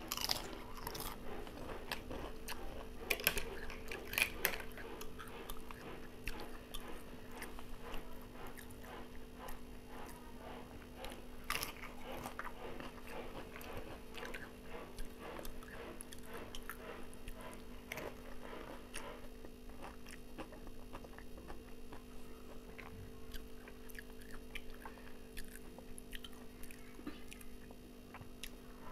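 Close-up crunching and chewing of crisp papad, bitten off by hand. The sharp crunches are loudest and densest in the first few seconds and again about twelve seconds in, and softer chewing runs through the rest. A steady low hum sits underneath.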